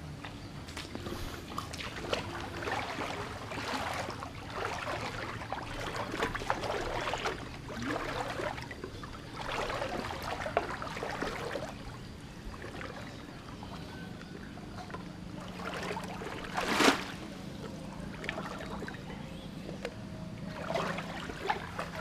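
Floodwater sloshing and splashing in repeated swishes, with one sharper, louder splash or knock about 17 seconds in. A faint steady hum comes in during the second half.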